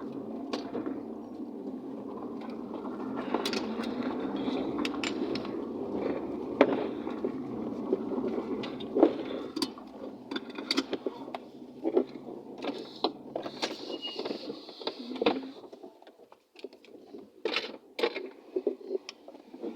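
Car on the move: a steady road and engine rumble with scattered sharp clicks and knocks. About fifteen seconds in, the rumble dies away and only irregular clicks and knocks remain.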